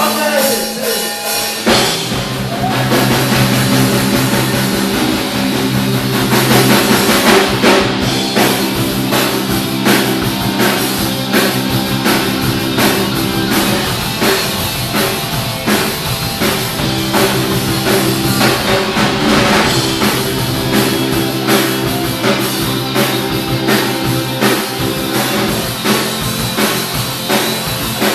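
Loud punk rock with distorted guitars, bass and a fast, steady drum beat; the full band kicks in about two seconds in.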